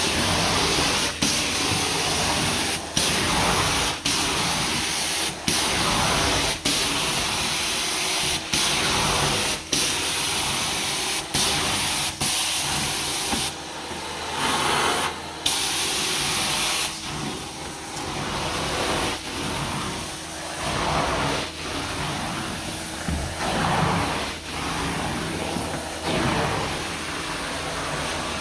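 Carpet extraction wand drawn across carpet in repeated strokes: a steady rush of vacuum suction and water spray through the cleaning head. It dips briefly about every second and a half as each stroke ends, and the high hiss is weaker in the second half.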